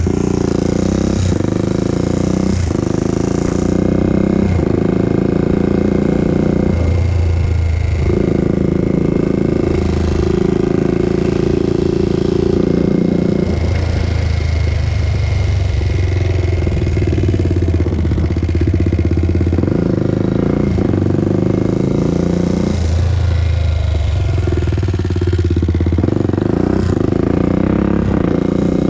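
Honda TRX400EX ATV's single-cylinder four-stroke engine running on a ride, its sound shifting every few seconds.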